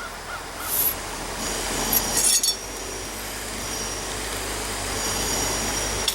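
Metal clinking a few times about two seconds in, with a high ringing after the strikes. A steady hiss and a thin high tone run underneath, typical of metalwork in a forge shop.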